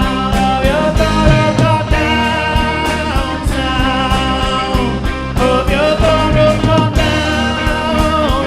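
Worship band playing a rock-style song: a steady drum beat under a lead melody that slides up and down between notes.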